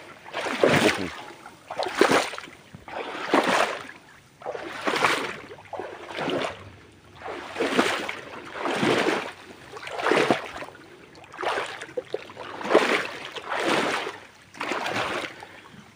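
Rhythmic splashing in shallow water, one swish about every second and a half, kept up at an even pace.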